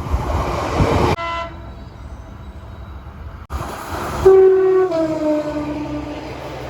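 Loud rushing noise of a passing train, then train horns across quick cuts: a single horn note that fades away, then a two-tone horn sounding a high note and then a lower one that sinks slowly in pitch.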